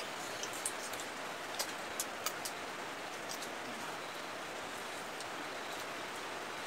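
Small wet clicks and smacks of hand-eating rice and chicken curry off plates and chewing, a few each second, over a steady hiss.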